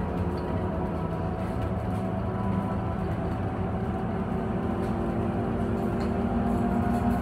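City transit bus running, heard from inside the passenger cabin: a steady low rumble of engine and road noise with several steady whining tones, growing a little louder near the end.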